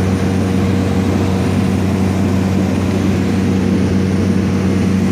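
Cabin noise inside a Cessna 208 Caravan in flight: its single PT6A turboprop engine and propeller give a loud, steady drone, a low hum over an even hiss.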